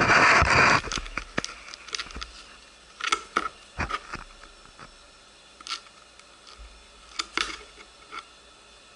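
Handling noise close to the camera microphone: a short loud rustle at the start, then scattered light taps and clicks, a few in quick pairs.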